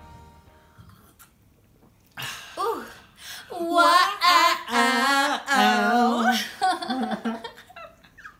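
A man and a woman crying out together in long, wavering whoops just after downing shots, beginning with a couple of short gasps about two seconds in.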